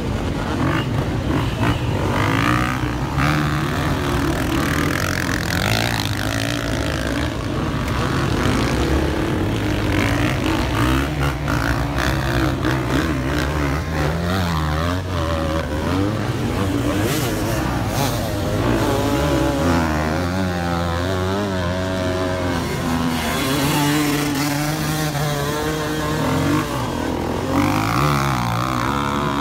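Several enduro dirt bike engines revving hard and unevenly as the bikes climb a steep, loose dirt hill, their pitch rising and falling over and over.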